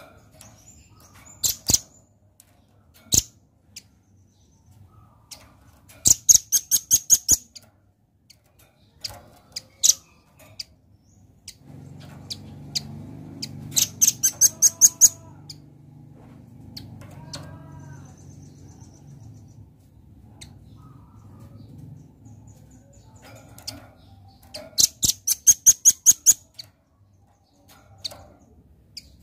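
Velvet-fronted nuthatch calling: three fast rattling trills of sharp, high notes, each about a second and a half long, with single sharp chips in between.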